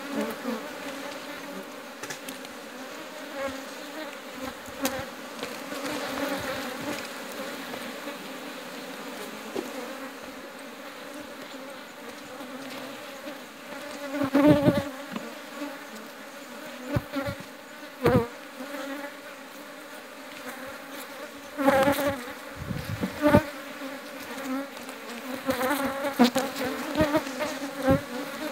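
Honeybee colony buzzing steadily over the frames of a hive that has been broken open and robbed of its honey. Several sudden thumps come through about halfway and again near the end.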